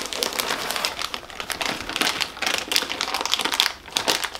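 Crinkling and rustling of a plastic candy wrapper and paper being handled, a dense run of quick crackles.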